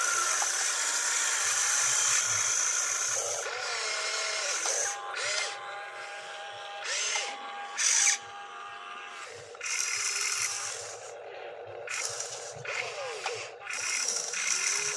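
Electric motors of a radio-controlled excavator whining in repeated short runs, starting and stopping as the boom, arm and bucket move to scoop soil and tip it into a model dump truck.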